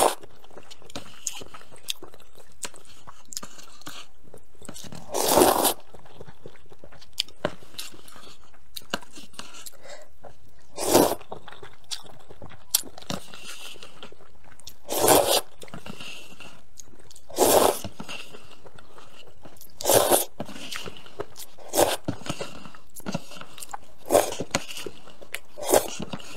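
A person slurping instant rice noodles and spicy broth from a paper cup: about eight short, loud slurps a few seconds apart, with chewing and small clicks between them.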